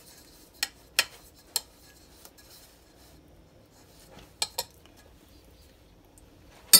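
A metal spoon clinking against a round metal baking pan as tomato sauce is spread over pizza dough: a few sharp, separate clinks, the loudest near the end.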